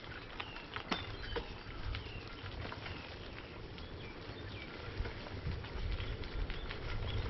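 Bicycle tyres rolling over light gravel, with scattered small crackles and clicks over a low rumble, and birds chirping in the background.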